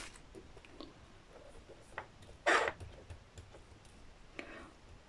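Quiet handling of round resin diamond-painting drills and small plastic bags: faint light clicks, with a brief louder rustle about halfway through and a softer one near the end.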